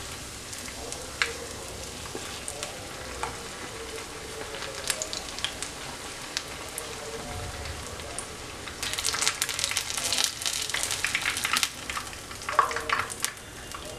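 Thread paneer rolls (paneer wrapped in shredded spring roll sheets) deep-frying in hot oil in a non-stick pan: a gentle bubbling crackle with a few light clicks of a metal slotted spoon. About nine seconds in, a fresh raw roll goes into the oil and it sizzles loudly for a few seconds.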